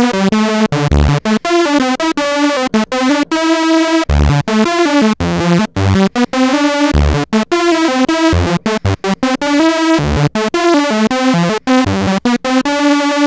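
Yamaha CS-15 analog synthesizer playing a quick run of many short notes that stop abruptly. Its two oscillators are tuned to the same pitch, and one is pitch-modulated by a fast sample-and-hold LFO at a low amount, so the sound has a random, unstable detuning.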